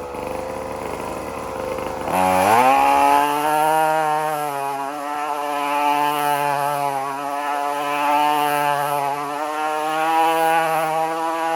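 Small mini moto engine running, then revved up sharply about two seconds in and held at high revs, the pitch wavering slightly.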